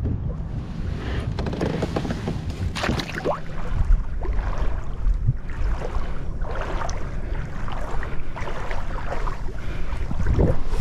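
Wind rumbling on the microphone, with irregular water sloshing and splashing from wading through shallow water at the shoreline.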